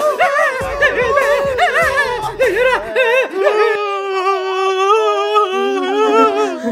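A high, wordless singing voice. For about three seconds it warbles quickly up and down in pitch, then it holds long notes that step lower toward the end.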